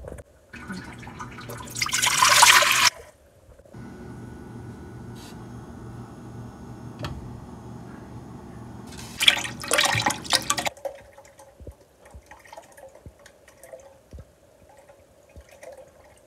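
Coconut milk poured from a carton into a pot, with two loud splashing stretches, the first a couple of seconds in and the second near the middle. A steady low hum runs between them.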